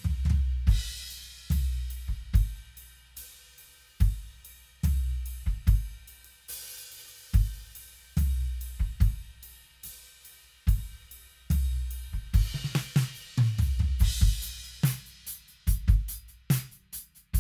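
Acoustic drum kit played on its own, with no other instruments: a groove of bass drum, snare and hi-hat with crashes on Zildjian cymbals. Busier fills come about two-thirds of the way in and again near the end.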